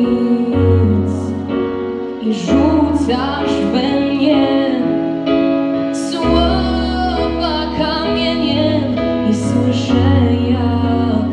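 A girl singing solo into a microphone, holding long notes with vibrato, over an accompaniment of piano and sustained bass.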